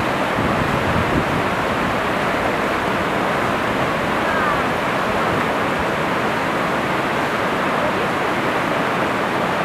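River whitewater rushing steadily over rapids.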